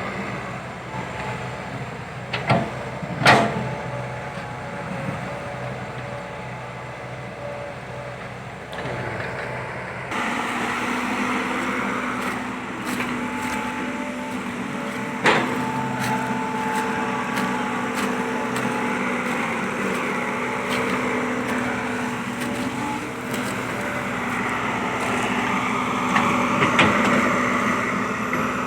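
Kobelco SK120 Mark 3 hydraulic excavator running while it digs, with a few sharp metallic clanks. Its engine gets louder and steadier about ten seconds in.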